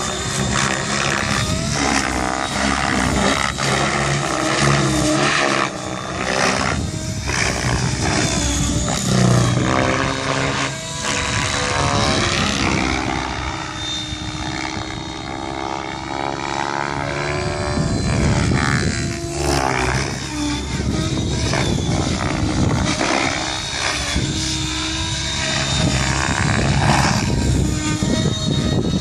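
Electric 700-size RC helicopter (Thunder Tiger Raptor G4 E720 with a Scorpion brushless motor) flying 3D aerobatics. The rotor blades whoosh and the motor and gears whine, the pitch rising and falling as it manoeuvres, a little softer in the middle while it is farther away.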